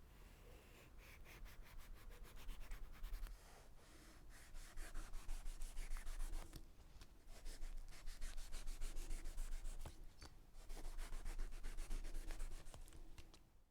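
Rapid rhythmic scraping strokes of a knife blade, in about four runs of a few seconds each with short pauses between.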